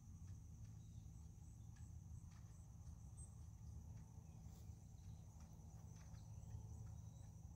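Faint, steady high-pitched trilling of insects, likely crickets, over a low rumble. Soft, muffled hoofbeats of a horse moving on arena sand sound here and there.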